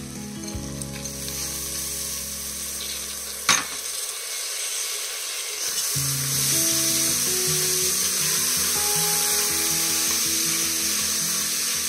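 Toor dal frying in hot oil with the tempering in a pressure cooker, stirred with a spatula: a steady sizzle that grows louder about six seconds in. One sharp knock about three and a half seconds in. Soft background music underneath.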